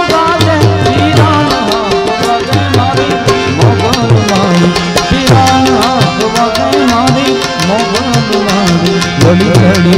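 Indian folk music: tabla playing a fast, even beat under a melodic accompaniment line.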